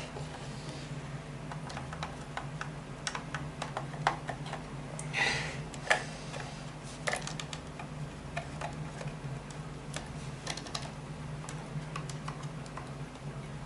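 Scattered light clicks and taps of Roomba parts being handled and wiped during cleaning, with a brief rubbing sound about five seconds in, over a steady low hum.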